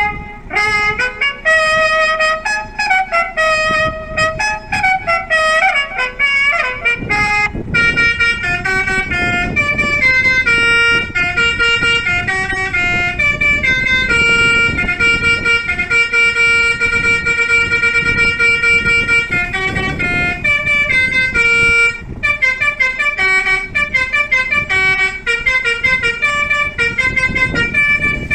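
A 500-watt electric basuri horn, the multi-tone melody horn, playing a tune loudly in a run of quick and held notes, with two short breaks.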